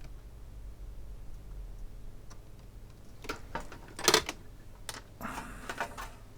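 Light clicks and taps of small tools and parts handled on a repair bench, starting about three seconds in, with one sharper click around four seconds and a brief scraping rustle after it.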